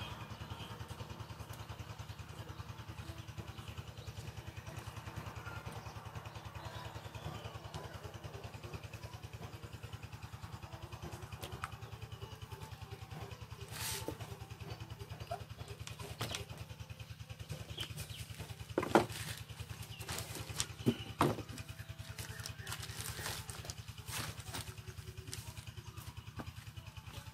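An RC crawler's chassis and plastic body shell being handled and set down on a wooden table: scattered clicks and a few knocks, loudest around 19 and 21 seconds in, over a steady low hum.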